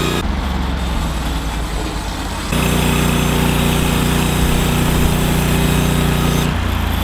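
Norwood LumberPro HD36 portable bandsaw mill's gas engine running steadily under load as the band blade saws through a squared log, cutting off boards. The sound shifts abruptly a couple of times.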